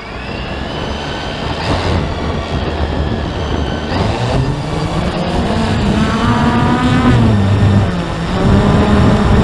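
A dramatic build in the background music: a loud rushing, train-like noise that swells steadily, with tones gliding up and then down through the middle and latter part.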